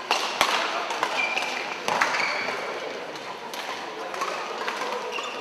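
Badminton rally: sharp taps of racket strings striking the shuttlecock every second or so, with short squeaks of shoes on the court floor.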